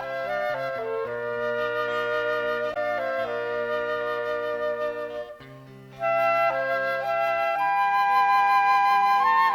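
Instrumental break in a Korean song: a flute-like melody of long held notes over sustained accompaniment chords. The music briefly drops away a little past halfway, then comes back louder.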